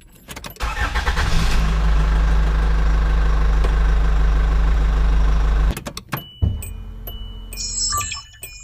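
A loud engine running with a deep, steady rumble. It starts about half a second in and cuts off abruptly a little past halfway. Quieter clicks and thin, high, steady beeps follow.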